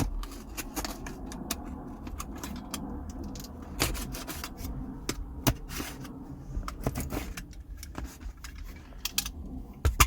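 A product package being unboxed by hand: scattered clicks, taps and scrapes of the box and its contents, with the sharpest knocks about four, five and a half and ten seconds in.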